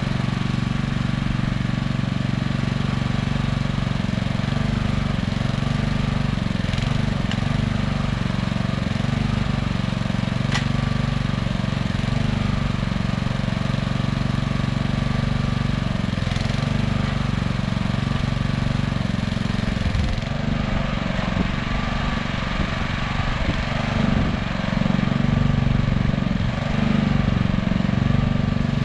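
Engine running steadily at a constant speed, with slight shifts in its sound over the last several seconds.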